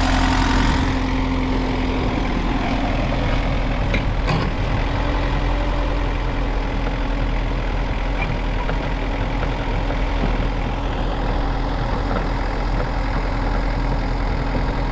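Engine of an Ingersoll Rand/Blaw-Knox tracked asphalt paver running steadily at idle, with one sharp click about four seconds in.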